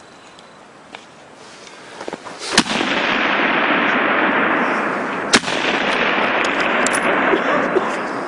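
Two sharp rifle shots about three seconds apart, from target rifles on the firing line. A loud rushing noise starts with the first shot and carries on almost to the end.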